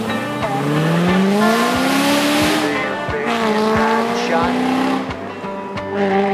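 A 2001 Corvette C5's modified V8, with cam, headers and Corsa exhaust, accelerating hard: the exhaust note climbs for about two and a half seconds, drops at a gear change about three seconds in, then pulls on steadily. Music with a steady beat plays over it.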